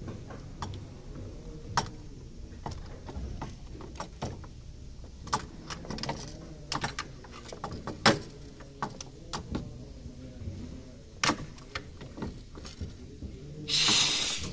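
Scattered clicks and light knocks from handling a brass AC manifold gauge set. Near the end comes a loud hiss of under a second: gas vented through the manifold to bleed the system's pressure-test charge down to 300.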